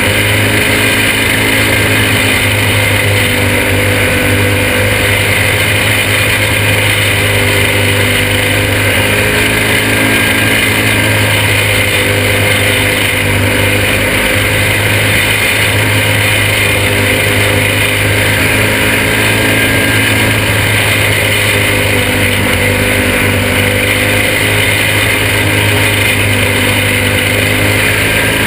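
A caged junior champ kart's small engine running hard at racing speed, recorded on board the kart. The engine is heard close with wind noise, steady overall, its pitch easing and picking up a little through the turns.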